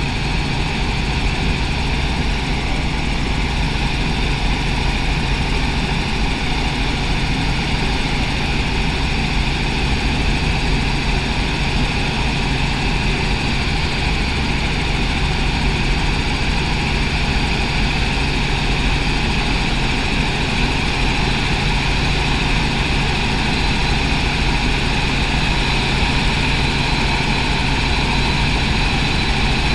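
Robinson light helicopter in cruising flight, heard inside the cabin: the steady noise of the engine and rotors, with a constant low hum and a steady high whine.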